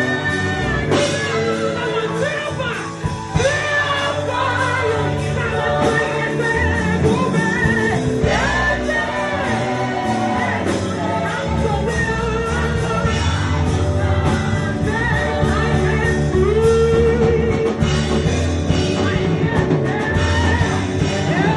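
Worship song: a voice singing over continuous band accompaniment.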